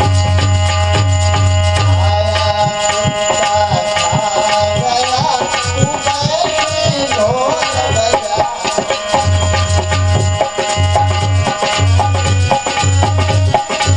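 Instrumental passage of a devotional bhajan: a hand-drum rhythm under steady sustained melody tones, with a wavering melodic line in the middle.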